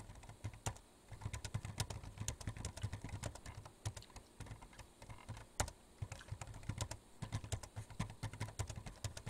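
Computer keyboard typing: quick, irregular key clicks with a couple of short pauses and one louder keystroke about five and a half seconds in.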